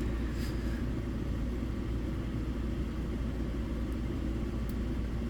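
Steady low background rumble, with a faint tick or two.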